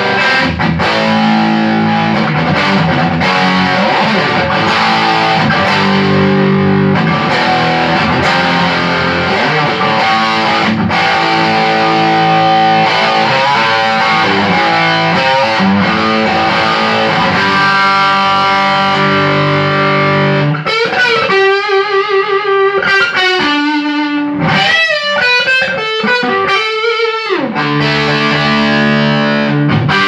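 Distorted electric guitar played through a Soldano Atomic 16 replica tube amp head into a custom slanted 2x12 cabinet loaded with an Electro-Voice 12-inch and an Eminence Legend speaker. Sustained chord riffs give way about twenty seconds in to single-note lead lines with vibrato and a bend sliding down, and chords return near the end.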